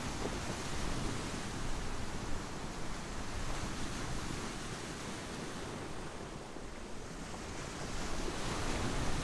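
Pacific surf breaking and washing over a shore of smooth volcanic boulders and pebbles: a steady rushing wash that eases off about six seconds in and swells again near the end.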